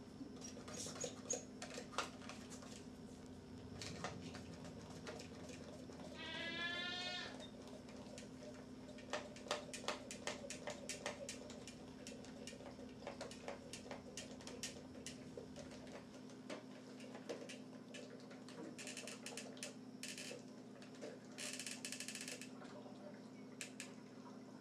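A goat bleats once, about six seconds in, in a short rising call. Around it come a run of light clicks and two brief airy hisses from a hand-pumped vacuum milker being worked on the goat's teat, over a steady low hum.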